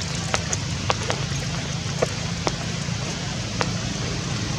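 Steady rain hissing, with single heavy drops tapping sharply and irregularly on a surface, over a low steady hum.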